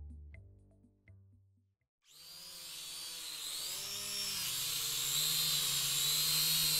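Music fades out, and after a brief silence a DJI Mavic Mini's propellers start whirring: a hissy whine with wavering pitch that grows steadily louder.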